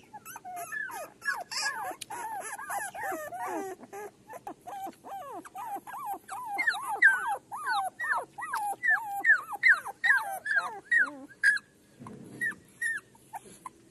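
Newborn puppies whimpering and squealing: a rapid run of short, high, wavering cries that thins out to a few scattered yelps near the end.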